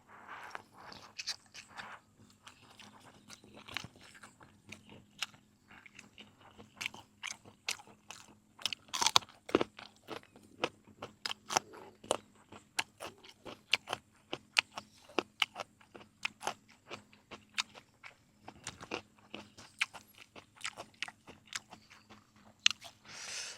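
A person chewing food close to the microphone, with many sharp, irregular crunches and wet mouth sounds.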